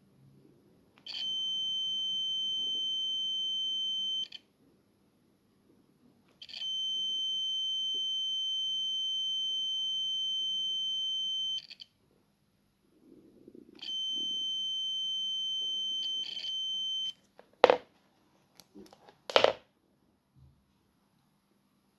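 Toyota's in-car warning buzzer sounding a steady high beep three times, each lasting several seconds and cutting off cleanly, as the door switch is tested. Two sharp loud clicks follow near the end.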